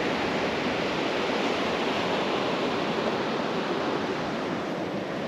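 Ocean surf breaking and washing onto a sandy beach, a steady rushing noise.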